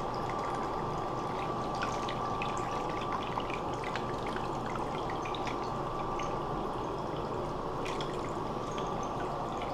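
Water running and trickling steadily, with scattered small clicks and taps from the plastic parts of a disassembled hose vacuum breaker being handled.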